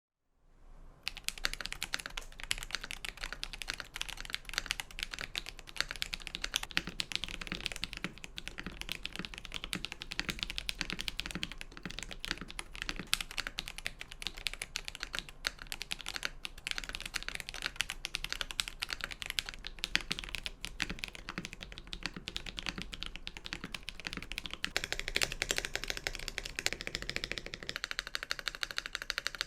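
Continuous fast typing on a GMMK Pro mechanical keyboard with relubed Akko Ocean Star tactile switches and PBT keycaps: a dense, steady stream of keystroke clacks starting about a second in.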